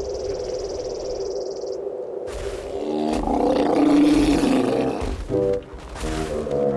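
Background music holding a steady chord, then a cartoon animal's growling roar that swells about three seconds in and breaks into shorter growls near the end.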